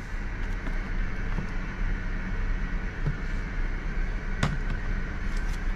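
Steady background hum and hiss of the shop's room air, air conditioning, with one sharp click about three-quarters of the way through.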